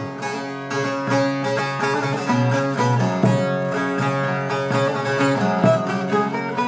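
Instrumental break of a Turkish song: a quick plucked-string melody over held string and bass accompaniment, with no singing.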